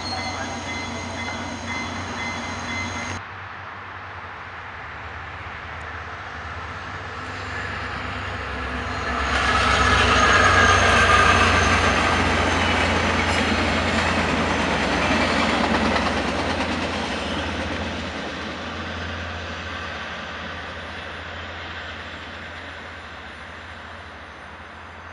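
A VIA Rail passenger train hauled by an F40PH-2 diesel-electric locomotive passing at speed: the locomotive and the wheels on the rails grow loud from about eight seconds in, stay loud for several seconds, then fade as the train moves away. About three seconds in, the sound of an earlier shot of an approaching train breaks off suddenly.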